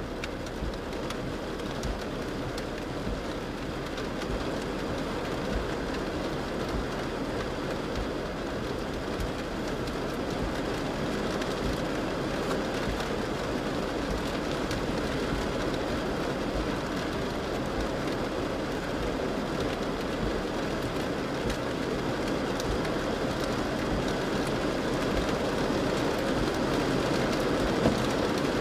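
Heavy rain drumming on a car's roof and windscreen, heard from inside the cabin, as a steady rushing that grows slowly louder as the downpour thickens.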